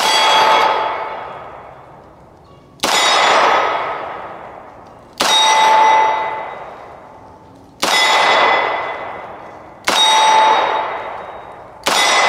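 Six shots from a Taurus 692 Tracker revolver firing 9mm in double action, spaced about two to two and a half seconds apart. Each shot is followed by a metallic ring that fades over about two seconds.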